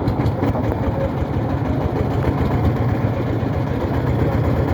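A boat's engine running steadily, with a fast low throb.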